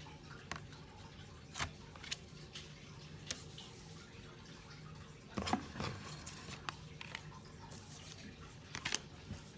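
Scattered light clicks and short rustles of a product package being handled, the busiest stretch about five and a half seconds in, over a steady low hum.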